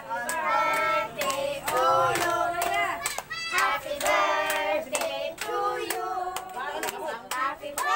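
A small group of voices, a child's among them, singing a birthday song together, with hands clapping along in a steady beat.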